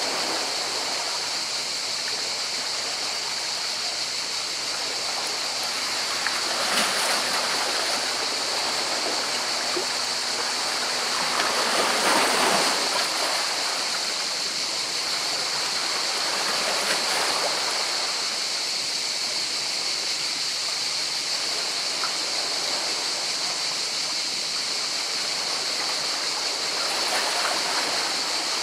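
Sea water washing in and draining among rocks, a steady rush with several louder surges as waves break, the biggest about twelve seconds in.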